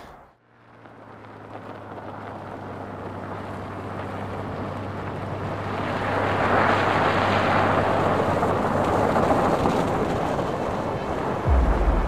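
A sound-design swell: a wind-like rush of noise over a low steady hum, building for several seconds and then holding. A deep low boom hits near the end.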